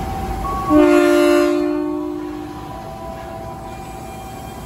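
Horn of an ex-Tokyo Metro 6000 series electric commuter train sounding one blast of about two seconds, a chord of several notes that starts suddenly just under a second in and then fades, over the train's steady electrical hum. The blast is typical of a driver's signal as the train prepares to pull out.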